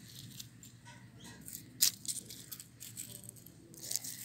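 Small plastic toy cow figures being handled among dry twigs and grass: light rustling and a scattering of clicks, the sharpest a little under two seconds in.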